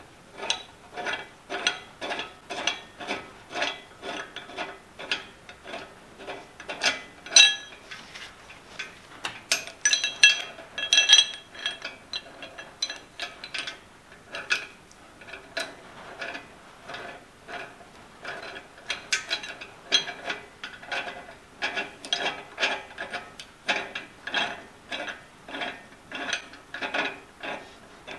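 Hand ratchet being worked in steady strokes: sharp metallic pawl clicks with a ringing tone, about two a second, with a few louder clacks around a third of the way through.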